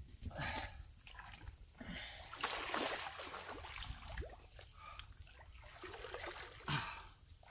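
Soft, intermittent splashing and trickling of shallow lake water around hands and a caught wels catfish held in the water to revive it.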